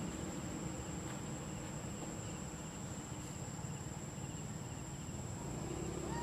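Steady, high-pitched drone of insects, one unbroken tone, over an even low background rumble.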